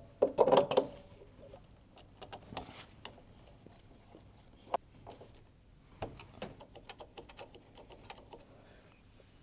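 Gloved hands refitting a washing machine's plastic heater cover: scattered light clicks and rustles of plastic and metal parts being handled and fastened, busiest in the first second.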